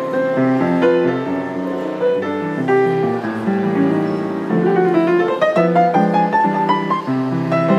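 Grand piano played with both hands: chords and melody, with a quick upward run of notes around five to six seconds in.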